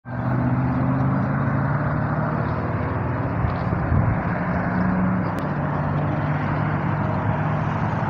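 A heavy engine running, a steady low rumble whose pitch shifts a few times, under a wide rushing noise.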